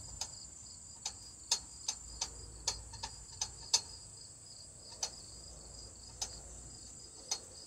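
Crickets trilling steadily at a high pitch, with about a dozen irregular, sharp close-up clicks and snaps over it.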